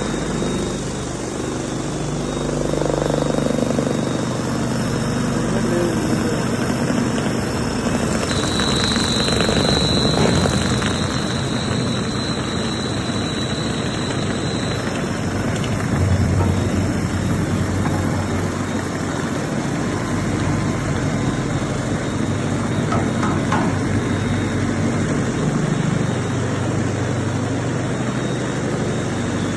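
High-speed heater-cooler mixer running with a steady mechanical drone and low hum. A high whine rises above it for several seconds in the middle.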